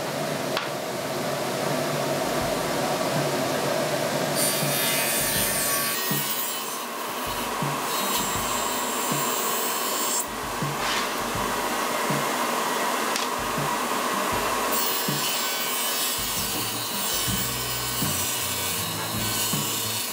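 Table saw running and cutting plywood as the sheet is fed through: a steady, loud whine of blade through wood, its tone shifting higher about six seconds in.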